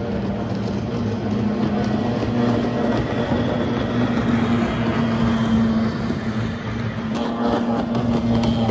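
Racing boats' outboard motors running on the course in a steady drone with a held pitch.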